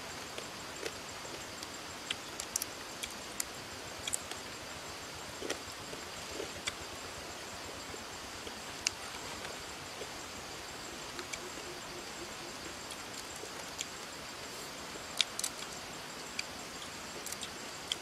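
Short, sharp clicks and crunches at irregular intervals, the loudest about three quarters of the way through: fried diving beetles' hard shells rattling as fingers pick through the heap, and being bitten and chewed. A steady background hiss with faint high steady tones runs underneath.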